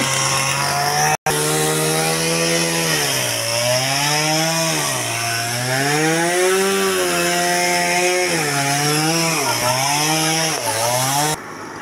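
A small engine running, its pitch rising and falling every second or two, with a brief dropout about a second in.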